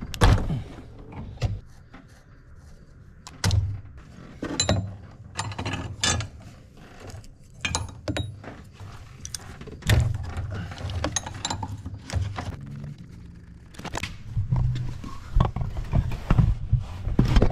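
A hand wrench clicking and knocking on the hydraulic line fittings of a Hydroboost brake booster as the pressure lines are loosened, with irregular metallic clicks and dull knocks.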